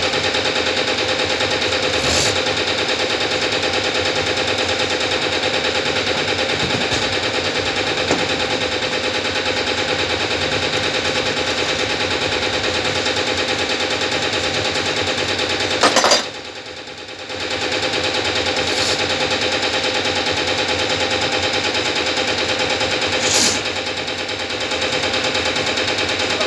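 A machine running with a steady, fast rattle. Its level drops for about two seconds around two-thirds of the way through. A few short knocks stand out over it.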